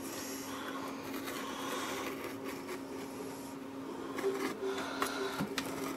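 Display adhesive on an iMac peeling away as the screen panel is pulled up from its aluminium housing: faint crackling and scraping, with a few small clicks about four to five seconds in, over a steady low hum.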